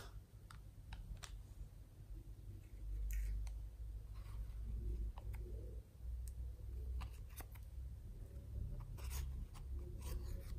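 Small plastic clicks and taps as a plastic eyeshadow palette is handled and opened, then a plastic spatula scraping eyeshadow from its pan near the end, over a low rumble that sets in about three seconds in.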